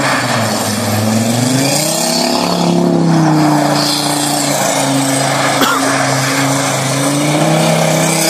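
Audi quattro's 2.5 TDI diesel engine revving hard while the car spins its wheels through snow; the revs dip early, climb again about two to three seconds in, then hold high, over the hiss of tyres churning snow.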